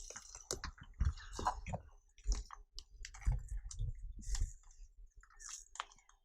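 Irregular footsteps and scuffs, a low thud about once a second, with scattered clicks and crackles over them; the steps die away near the end.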